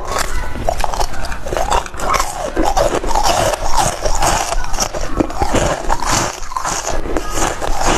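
Close-miked crunching and chewing of frozen basil-seed ice: a continuous run of sharp cracks and crackles as the ice is bitten and ground between the teeth.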